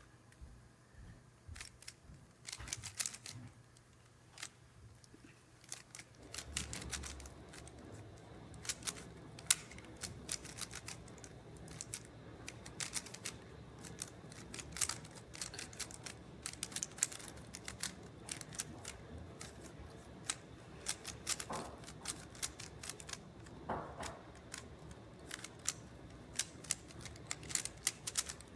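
Plastic 3x3 Rubik's cube being turned fast, a rapid irregular clatter of layer clicks and snaps, sparse at first and much denser from about six seconds in.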